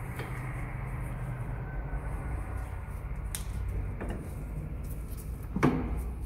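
Steady low hum with a few light clicks as hands work at a car's front suspension, and one sharper metallic clank about five and a half seconds in.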